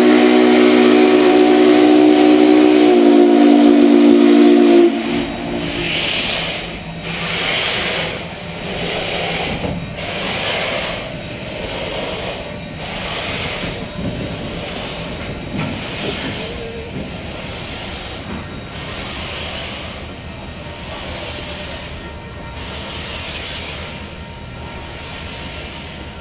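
Union Pacific 844's steam locomotive whistle blowing a loud chord of several notes for about five seconds, its higher notes dropping out about three seconds in. Then the passing train, a rushing, hissing sound that pulses about once a second and slowly fades as the tender cars roll by.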